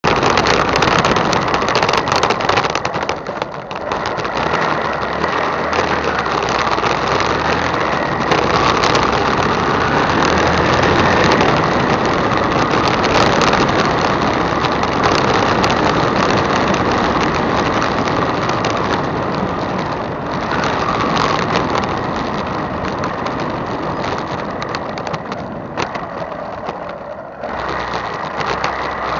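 Motorcycle engine running while riding, picked up by a handlebar-mounted camera, with road and wind noise. The engine note rises and falls, and there is a rough rattle over stone paving in the first few seconds.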